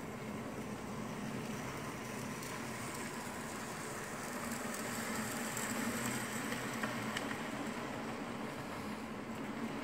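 Model train running on its track: the locomotive's motor and the wheels on the rails make a steady hum and rumble, growing somewhat louder about halfway through as the train passes closest.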